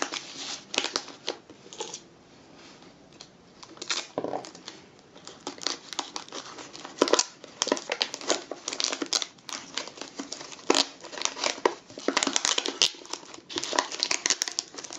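Wrapping paper crinkling and rustling in short irregular crackles as it is folded and pressed over the end of a cardboard tube and taped down; quieter for a moment about two seconds in, busier in the second half.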